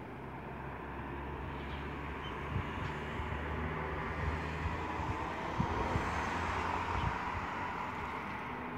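Distant engine drone with a low steady hum, swelling to its loudest about two thirds of the way through and then easing off, like something passing.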